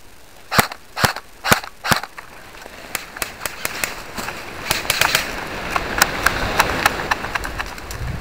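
Airsoft gun firing semi-automatically: four loud, sharp shots about two a second, followed from about three seconds in by a string of fainter, irregular sharp snaps over a rising rustle.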